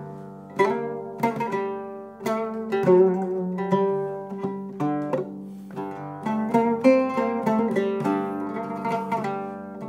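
Solo oud played: a melody of single plucked notes, each sharply struck and left ringing as it fades, with lower notes sounding on beneath the line.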